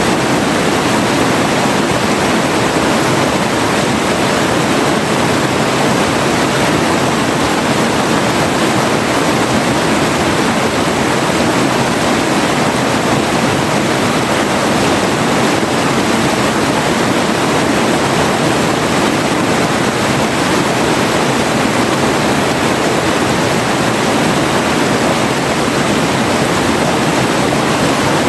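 Forest river rushing steadily over rocks, a constant even roar of flowing water.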